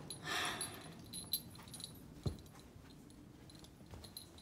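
Faint movement and handling sounds: a short breathy rush near the start, then a couple of sharp light knocks and a few small clicks, like steps and the phone being handled.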